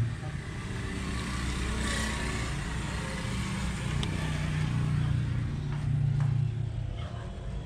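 A low, steady engine hum of a motor vehicle, growing louder about five to six seconds in and then easing off.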